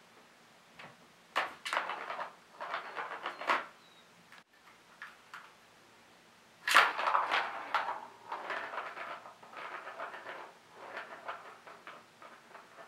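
Ball rolling and rattling around the plastic track of a Catit Senses Circuit cat toy as a kitten bats at it. Two spells of quick clattering, the louder one starting about halfway through.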